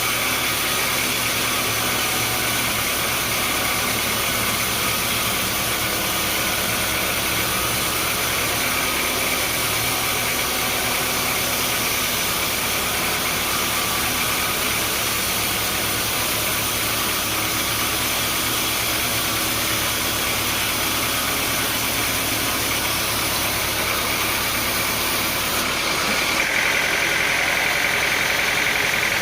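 Sawmill machinery running steadily: a constant engine drone with hiss. A higher whine grows louder about 26 seconds in.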